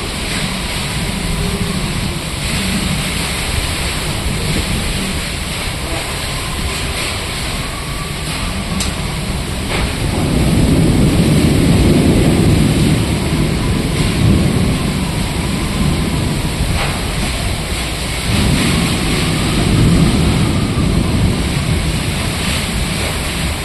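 Steady rain falling, with scattered sharp drip ticks and low thunder rumbling that swells up about ten seconds in and again near the end.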